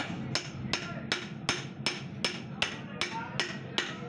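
Steady hammering on metal, about ten blows at an even pace of roughly two and a half a second, each with a short metallic ring.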